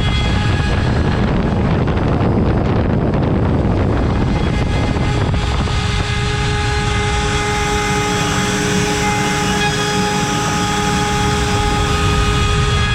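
CNC router spindle at 24,000 rpm with an 8 mm cutter milling wood: a steady high whine with the rough noise of the bit cutting through the wood. In the first third the whine sinks under heavier cutting noise for a few seconds.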